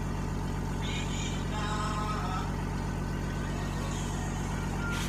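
An engine running steadily at idle, a constant low hum with a fine even pulse.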